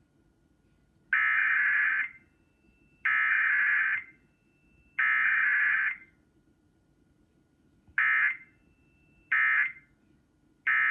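Emergency Alert System SAME data bursts heard through a television speaker: three raspy, buzzing bursts of about a second each (the digital header, sent three times), then three short bursts (the end-of-message code). It is a Required Weekly Test, so no attention tone or voice message sounds between them.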